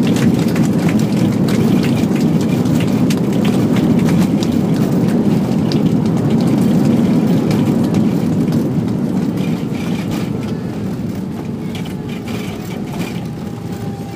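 Cabin noise of an Airbus A319-114 on its landing rollout: a loud, steady rumble of engines and runway roll with small rattles and bumps, easing off through the second half as the aircraft slows.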